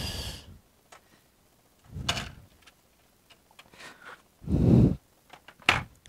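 Scattered handling noises at a workbench: a few short clicks and knocks, a duller thud a little over four seconds in, and a sharp click near the end.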